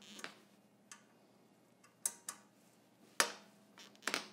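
Allen key turning a screw into the metal carriage plate of a quilting frame: several sharp metallic clicks and taps, spaced irregularly, with a close pair near the end.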